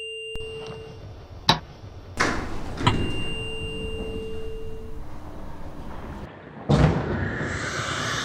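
Abstract electronic soundtrack: steady pure tones, a few sharp knocks, and a rushing noisy wash that rises after the last knock near the end.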